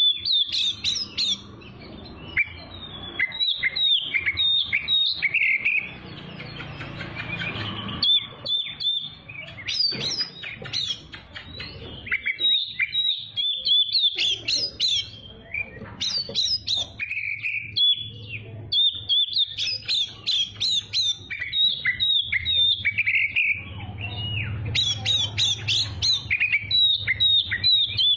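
Oriental magpie-robin (kacer) singing a long, varied song of rapid chirps, whistles and short trills, almost without pause.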